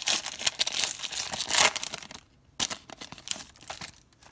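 Foil wrapper of a Triple Play baseball card pack being torn open and crumpled by hand, crackling densely for about two seconds, then a few softer rustles.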